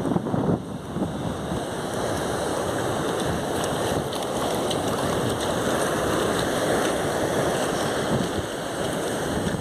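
Surf washing onto a beach, a steady rush that swells slightly midway, with wind buffeting the microphone.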